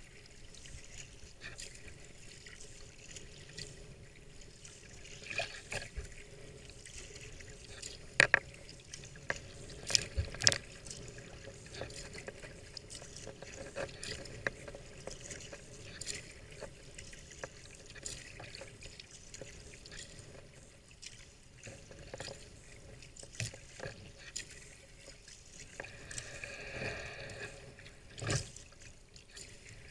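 Water sounds from sea kayak paddling: paddle blades dipping and dripping, with small waves lapping at the hull. A few sharper splashes or knocks stand out, the loudest about eight to ten seconds in.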